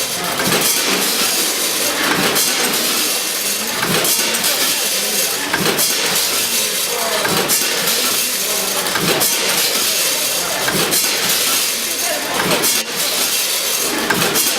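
Olive packaging machine running, a steady loud mechanical noise with repeated clacks.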